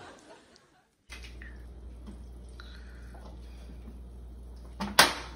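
Quiet kitchen room tone with a low steady hum and small handling sounds around a frying pan on a gas stove, then one sharp clack near the end.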